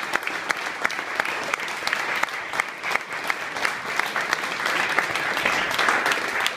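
Audience applauding: many people clapping together in a dense, steady patter, with single sharp claps standing out close by and the clapping growing a little louder near the end.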